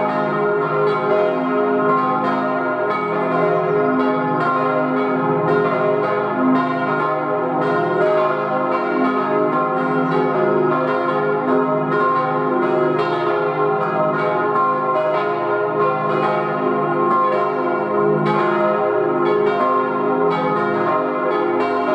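Church bells cast by H. Rüetschi of Aarau in 1897 ringing together in a continuous peal, their strikes overlapping without a break.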